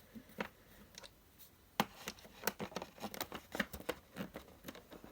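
Screws being turned out of a diecast model car's plastic packaging base: a run of light, irregular clicks and ticks, sparse at first and coming faster after about two seconds.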